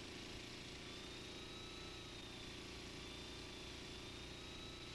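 Faint, steady drone of the small engine driving a flexible-shaft concrete vibrator, with a thin high whine that wavers slightly in pitch.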